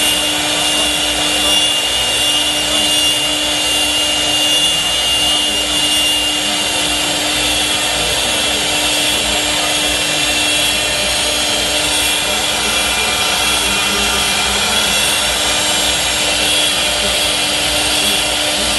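Woodtec MR-1325 woodworking machine with its lathe attachment running steadily and cutting wood: an even, continuous cutting noise over a constant motor hum.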